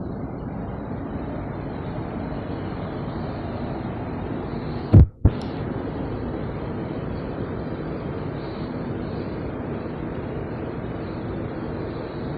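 ICE high-speed train power car standing at the platform, its electrical equipment and cooling fans giving a steady, even hum. About five seconds in comes one loud, sharp double thump.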